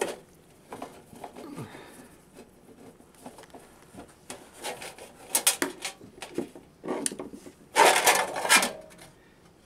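Hand screwdriver turning out the screws that hold a thin aluminium reflector in a metal wall-pack light housing, with small clicks and metal scrapes. Near the end, the loudest sound: the sheet-metal reflector scraping and rattling against the housing as it is lifted out.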